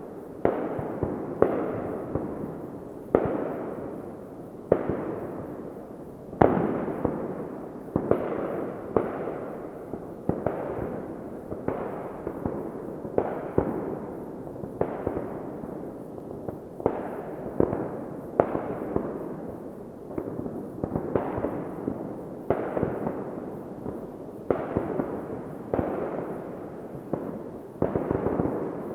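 New Year's Eve fireworks going off without a break: a steady run of bangs, roughly one a second, each followed by a fading rumble that runs into the next.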